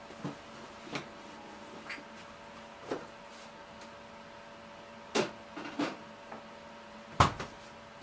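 Scattered clicks and knocks of kitchen utensils and dishes being handled, about seven in all, the loudest a heavier knock near the end, over a steady hum.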